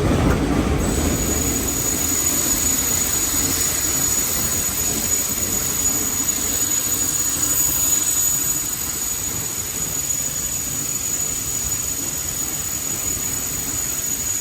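Steady rumble and hiss of a steam excursion train heard from on board, with a thin, high, steady whine that starts about a second in. The low rumble eases about two-thirds of the way through.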